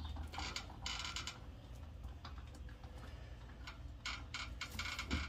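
Light metallic clicking and ticking from lug nuts being threaded by hand onto the wheel studs as a front wheel is refitted to the hub. It comes in two bursts, one about half a second in and one near the end, with scattered clicks between.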